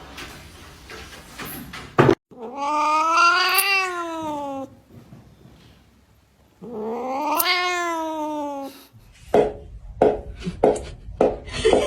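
A cat giving two long drawn-out yowls a couple of seconds apart, each rising then falling in pitch. Near the end comes a quick run of short, sharp sounds.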